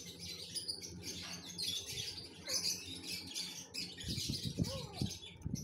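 Small caged birds chirping continually in quick overlapping bursts, with a few lower, arching calls near the end.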